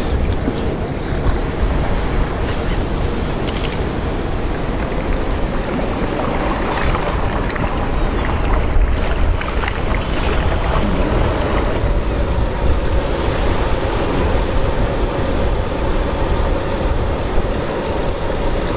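Small waves sloshing and splashing right at the microphone, a steady wash of water noise with wind rumbling on the microphone underneath.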